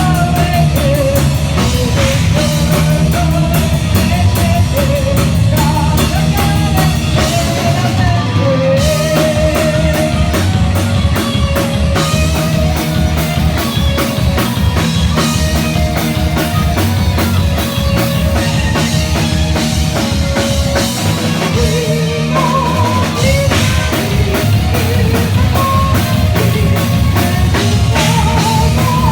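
A rock band playing live, with a drum kit beating busily under guitars and bass and a wavering lead melody carried above them.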